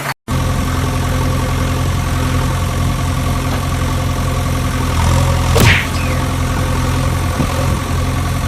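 Diesel engine of a heavy vehicle idling steadily, with a short sweeping sound about five and a half seconds in. The sound drops out for a moment just after the start.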